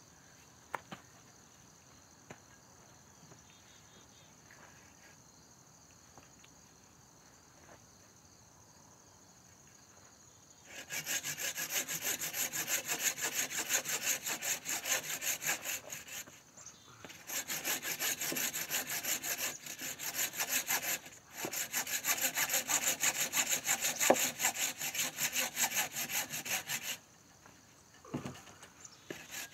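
Handsaw cutting through a birch log in fast, rhythmic strokes. It starts about a third of the way in, pauses briefly twice, and stops shortly before the end.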